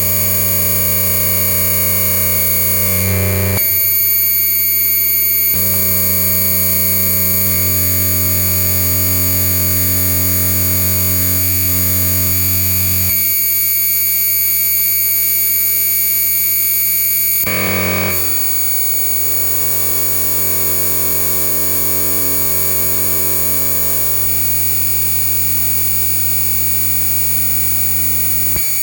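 Electronic synthesizer drone: sustained buzzing, noisy tones stacked into a dense chord. The notes shift at about 3, 5, 7, 13 and 17 seconds in, and it gets a little quieter after the change near 17 seconds.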